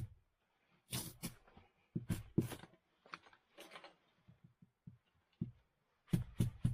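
Irregular knocks and thuds, with clusters about a second in, around two seconds in and near the end, as things are handled while lighting a wood stove, likely firewood and stove parts.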